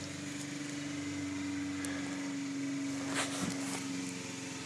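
A steady mechanical hum holding one low tone, with a few faint clicks and rustles about three seconds in.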